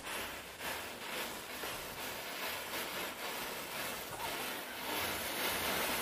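Matchsticks burning in a chain, a steady hiss with faint crackling.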